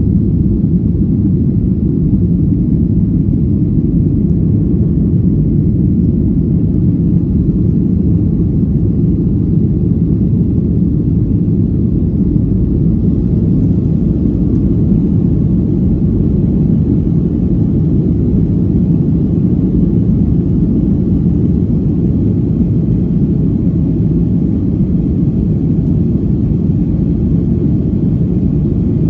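Steady low rumble of a Boeing 737's jet engines and rushing air, heard from inside the passenger cabin during the climb after takeoff.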